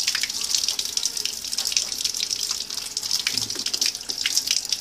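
Water running from a wall tap and splashing over a small rubber balloon and hands held in the stream, a steady hiss broken by constant splashing.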